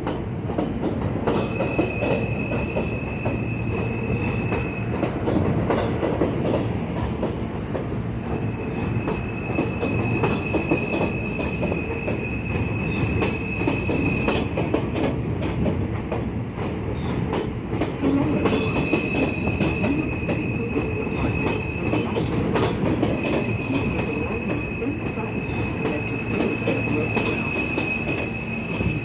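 New York City subway train of R160 stainless-steel cars rolling slowly past, its wheels squealing on the rails in one steady high tone that drops out and comes back several times. Under it runs the rumble of the wheels, with frequent clicks over rail joints.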